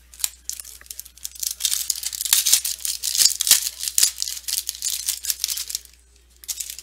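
Rapid crinkling and clicking of a foil trading-card pack being torn open and its stiff chrome cards handled, for about six seconds with a short burst again near the end.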